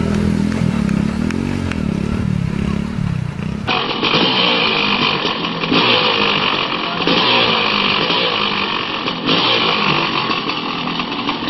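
Small motorcycle engine revving up and down as it rides through shallow water. About four seconds in there is an abrupt switch to a louder, rougher dirt bike engine running and revving.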